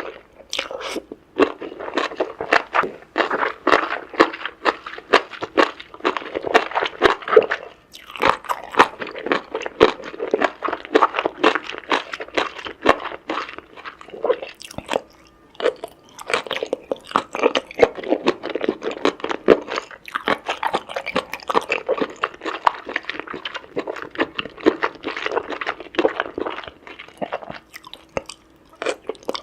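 Close-up chewing and crunching while eating seafood: fast, crackly bites and mouth sounds, with a few short pauses between mouthfuls.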